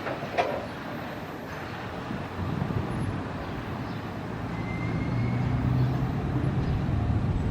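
Freight train running past: a steady rumbling roll with a low hum that grows louder over the last couple of seconds.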